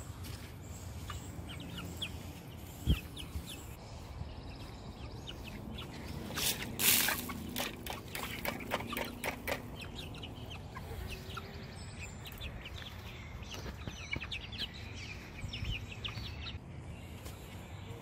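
Backyard chickens clucking and chirping in short, scattered calls. A single sharp knock comes near three seconds in, and a loud rustling burst about seven seconds in.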